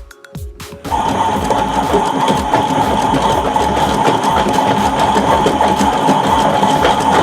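Toy washing machine running its cycle: a small electric motor comes on about a second in and then runs steadily with a constant whine and a rattle.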